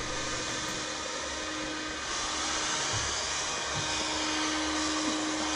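Electric heat gun blowing steadily, a hiss with a fan hum, growing a little louder about two seconds in. It is heating recycled plastic composite rail to soften it for bending.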